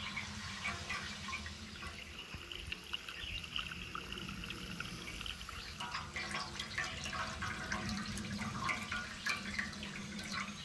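Water running out of a fill-pipe fitting and trickling into a stainless steel water pan inside an offset smoker's cook chamber, with small scattered ticks and splashes that grow more frequent about halfway through.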